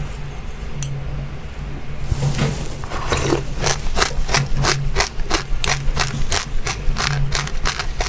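A person chewing crunchy dry seeds (chilli seeds and buckwheat) close to the microphone, with crisp crunches at about three a second starting about two seconds in, over a steady low hum.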